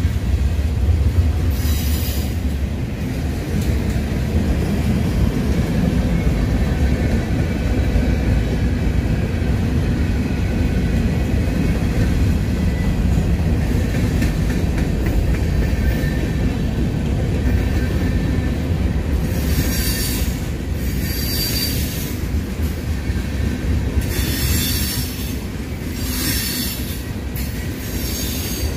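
Norfolk Southern freight cars rolling past with a steady low rumble. The wheels squeal in short high-pitched bursts, once about two seconds in and then repeatedly from about twenty seconds in.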